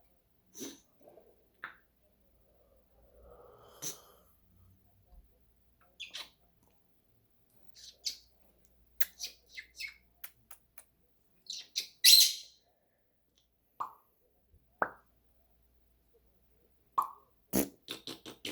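African grey parrot making a scattered series of short clicks, chirps and pops, with a louder, longer call about twelve seconds in.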